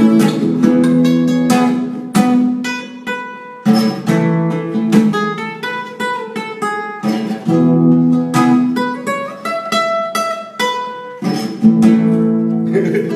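Nylon-string classical guitar being strummed and picked: a run of chords with sharp attacks and ringing notes, easing off briefly twice along the way.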